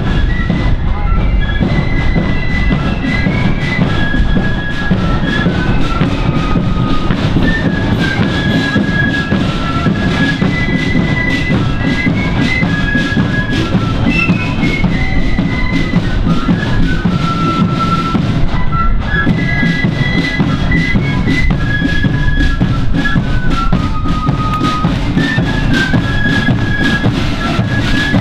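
Marching flute band playing a tune, the flutes carrying a high melody over steady side-drum and bass-drum rhythm.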